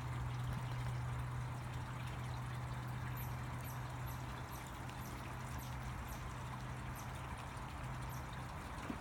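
Steady rushing background noise with a low hum underneath, and faint, very high ticks about twice a second from about three seconds in.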